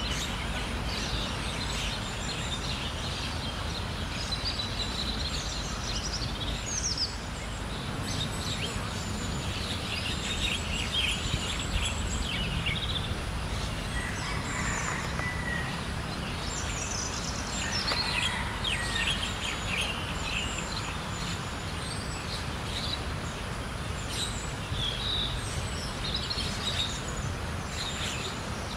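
Outdoor bird ambience: many small birds chirping over a steady low rumble, with two brief, steadier calls about halfway through, a few seconds apart.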